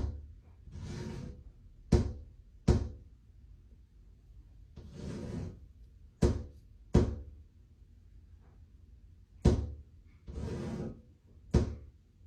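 Sharp knocks, about seven, coming singly and in pairs in an uneven Morse-code-like pattern, taken as ghost knocking. Between them, three rushing hisses about a second long.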